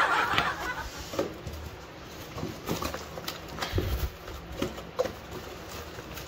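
Cardboard packaging being handled and pulled open: scattered rustles, scrapes and light knocks, with a dull thump about four seconds in.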